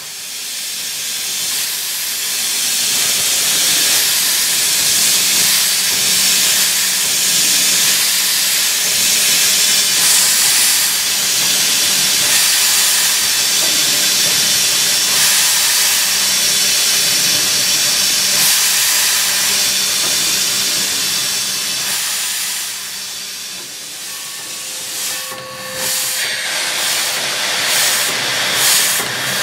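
Steam hissing steadily from a 2-8-2 Mikado steam locomotive, heard from inside its cab; the hiss builds over the first few seconds and near the end breaks up into uneven puffs.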